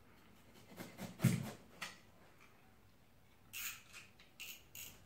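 A blade cutting down through a thick block of foam sponge in a run of short strokes: a few spaced ones in the first two seconds, the loudest about a second in, then a quicker series of four or five near the end.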